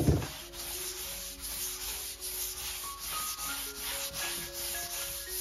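Wax being rubbed by hand into the oak top of a vintage buffet: a brisk, rasping rub in quick, even strokes, about four or five a second, with faint music underneath.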